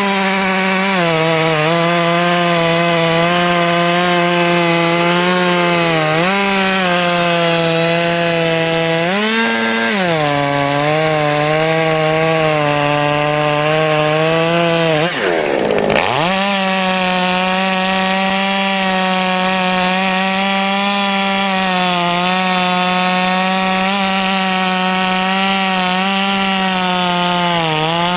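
Echo CS-600P two-stroke chainsaw running at high revs through wood, the engine note sagging and recovering under load several times. About fifteen seconds in, the revs drop away almost to idle, then climb straight back up to full speed.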